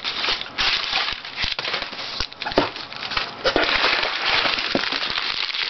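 Crumpled newspaper packing rustling and crackling steadily as it is pulled out of a cardboard shipping box.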